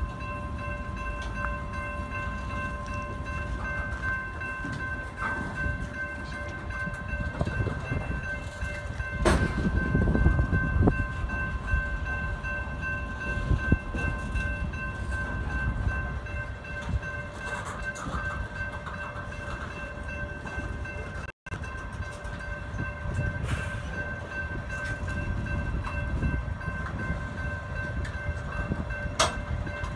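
Covered hopper cars of a freight train rolling past at a grade crossing: a steady low rumble of wheels on rail, swelling about a third of the way in, with a few sharp clanks. Steady high ringing tones sound over it the whole time.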